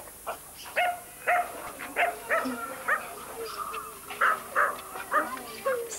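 A series of short, pitched animal calls, repeating about twice a second.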